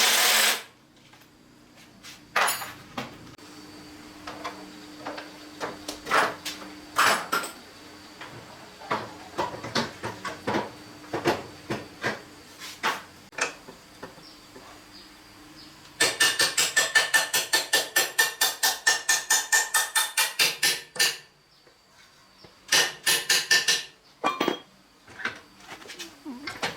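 Metal workshop tool sounds: scattered knocks and taps on metal, then about five seconds of rapid, even metallic strikes at roughly eight a second, and a shorter burst of the same a little later.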